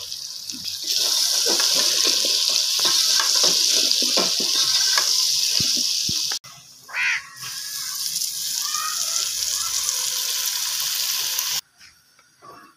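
Onion-tomato masala sizzling in a metal pot as cubed potatoes are stirred in with a steel ladle: a steady high hiss with scattered light clicks of stirring. It cuts off abruptly near the end.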